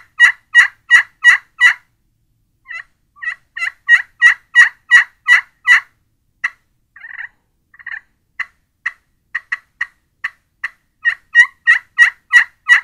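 Glass-surface turkey pot call in a wood pot, worked with a striker to imitate a hen turkey: runs of short, evenly spaced yelps, about three a second and high-pitched, with scattered single notes between the second and third runs.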